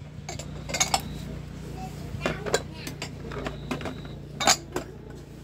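Dishes and cutlery clinking as they are handled: a string of separate sharp clinks, loudest about four and a half seconds in, over a steady low hum.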